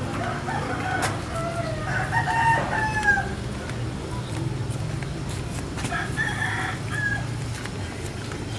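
A rooster crowing twice: a long call about two seconds in that falls away at its end, and a shorter one about six seconds in. A steady low hum runs underneath.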